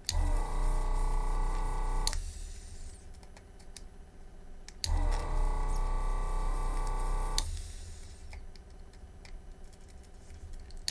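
Yihua 948 desoldering station's vacuum pump switching on and running with a steady hum for about two and a half seconds, twice, each run starting and stopping with a click: the desoldering gun sucking molten solder off circuit-board pads.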